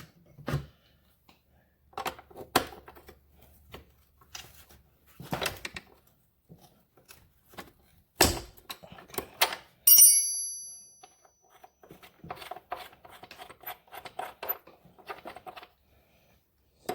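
Hand tools working on the steel chain-adjuster bolts of a small ATV: scattered clanks and knocks. About ten seconds in, a metal tool strikes and rings out for about a second. After that comes a quick run of light metallic clicks.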